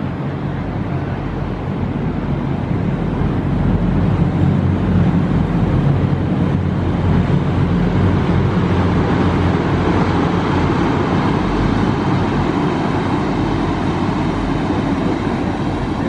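City traffic noise with the steady low hum of a large engine, swelling about four seconds in and easing again toward the end.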